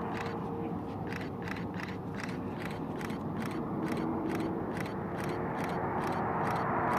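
Turbofan jet, the Model 401's Pratt & Whitney Canada JT15D-5D, approaching to land: a steady whine with a rushing noise that grows louder near the end. Over it runs a regular ticking, about four clicks a second.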